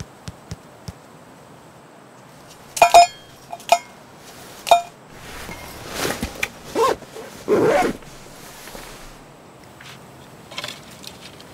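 A tactical backpack being handled in the snow: a few sharp clicks with a short ring, then rustling of the pack's fabric and its contents as it is packed and shouldered. Footsteps crunch in snow near the end.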